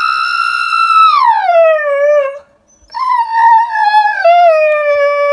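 A dog howling: two long howls with a short break between them. The first holds a high note, then slides down in pitch; the second is lower and wavers near the end.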